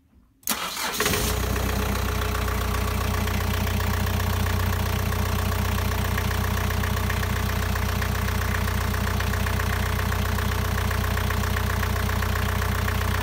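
Yanmar marine diesel engine starting: it cranks briefly, catches about a second in, then idles steadily with an even, rhythmic beat.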